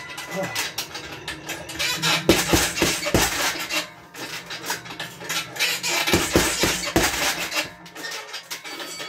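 Boxing gloves punching a heavy bag in two quick combinations, about two and six seconds in, each a few hard thuds in a row. There is metallic rattling from the bag's hook and hanging hardware.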